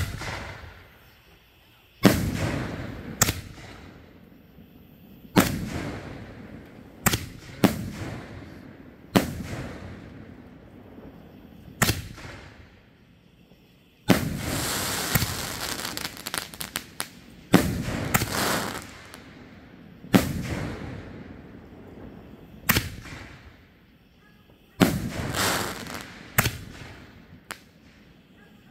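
Seven-inch Diesel firework canister shells launching and bursting overhead: a dozen or more sharp bangs, each trailing off in a long echo, with a denser stretch of bangs and crackle about halfway through.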